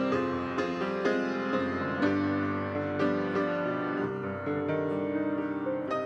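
Grand piano playing a hymn accompaniment on its own, a fresh chord struck about once a second over sustained notes.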